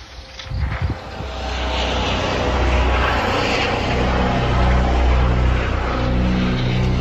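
Aircraft engine drone that builds over the first couple of seconds and then holds steady, with a low hum underneath.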